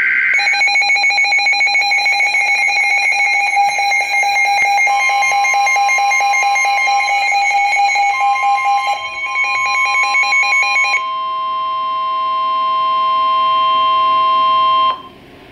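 Weather alert radio sounding its severe thunderstorm warning alarm: a rapidly pulsing electronic beep for about eleven seconds, with the steady warning alert tone coming in about five seconds in. The steady tone then runs alone until it cuts off shortly before the end.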